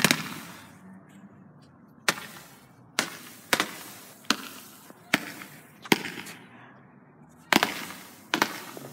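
A multi-shot consumer firework cake firing its finale shots: about ten sharp bangs at uneven spacing, roughly one every half second to a second. About six and a half seconds in there is a gap of a second and a half, then two close pairs of bangs near the end.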